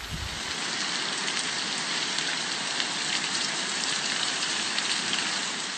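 Heavy hurricane rain pouring down in a steady hiss, with faint pattering of drops on surfaces.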